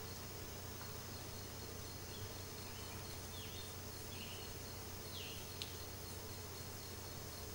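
Faint background insect trilling, steady and high-pitched, with a few short chirps in the middle and a single sharp click a little past halfway.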